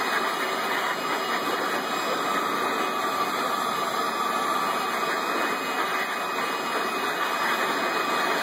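Handheld leaf blower running steadily: a constant rush of air with a faint motor whine.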